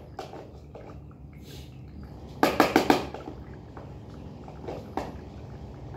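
A metal spoon clinks against a cat's food bowl, four quick strikes close together about halfway through, amid soft small sounds of a cat eating wet food.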